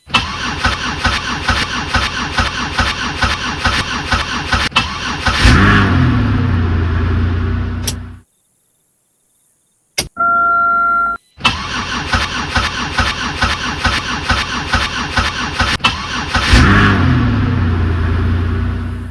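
2003 Pontiac Grand Prix V6 cranking with an even rhythmic starter beat for about five seconds before it catches, revs up and runs. The same long crank-then-catch happens twice, with a short steady electronic tone and a gap of silence between the two starts. The long cranking is typical of the hard-starting fault.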